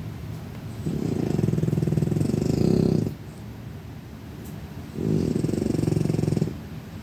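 Snoring: two long, low, rattling snores about four seconds apart, with quieter breathing between them.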